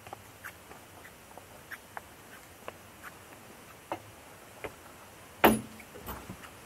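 Footsteps on the railway track: short, irregular clicks and crunches about one or two a second, with one louder knock about five and a half seconds in.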